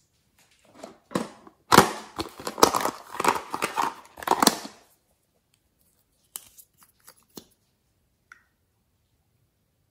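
Crackly plastic clicking and scraping as a plastic toy makeup compact is handled and its contents pried out, dense for about four seconds, then a few light clicks.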